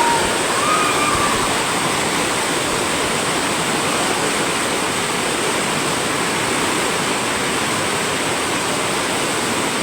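Floodwater rushing steadily, a loud, even wash of flowing water.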